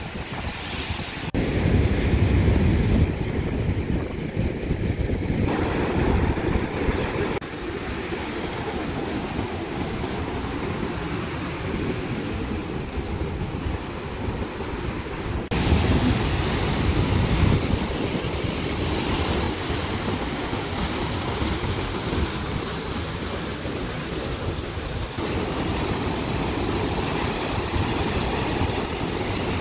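Ocean surf: waves breaking and washing in, a steady rush with wind rumbling on the microphone. The sound shifts abruptly in level a few times where separate recordings are spliced together.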